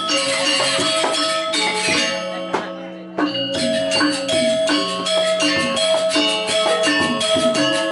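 Balinese gamelan music: fast runs of struck metallic notes over held ringing tones. The music fades into a brief lull about two and a half seconds in and comes back suddenly about half a second later.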